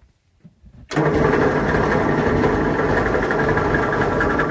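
A 12-volt electric winch switches on abruptly about a second in and runs steadily under heavy load, drawing around 345 amps from the batteries.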